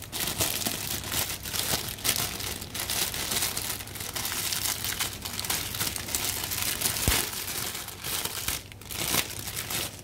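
Plastic packaging crinkling and rustling as a new washing-machine shock absorber is unwrapped by hand.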